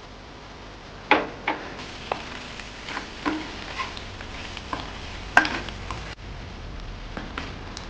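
Kitchen utensils clinking and knocking against cookware, as in stirring or handling food in a pot, in a run of irregular sharp clicks that starts about a second in.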